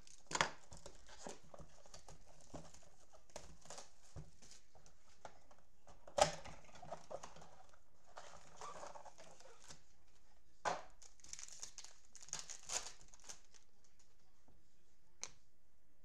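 Cardboard blaster box and foil-wrapped trading-card packs being torn open and handled: crinkling wrapper with several sharp snaps of cardboard and foil, the loudest about six seconds in.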